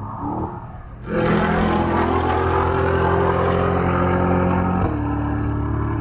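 Cadillac CT5-V Blackwing's supercharged 6.2-litre V8 running hard on track. The sound jumps up loud about a second in, holds a steady pitch, and drops to a lower note near the end.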